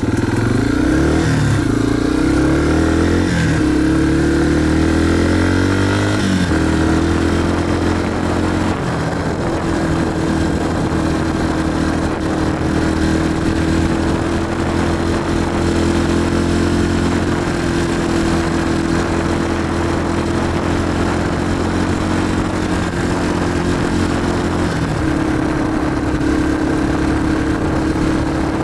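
Dirt bike engine pulling away, its pitch climbing and dropping through gear changes over the first six seconds, then running at a steady pace, with a change in engine note near the end.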